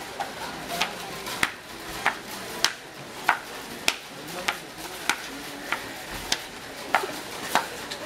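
Rubber swim fins slapping on a hard tiled floor with each step, a sharp slap about every 0.6 seconds, over faint murmur of voices.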